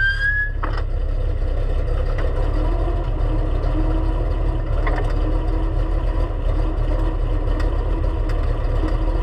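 Race car engine idling steadily with a low rumble, heard from inside the cockpit.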